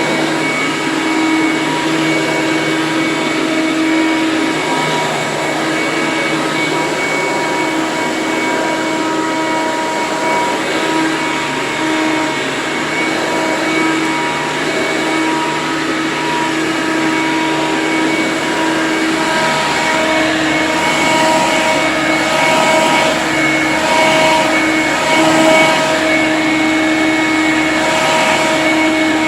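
Eureka TheBoss 10-amp upright vacuum cleaner running steadily: a motor whine held at several steady pitches over a loud rush of air.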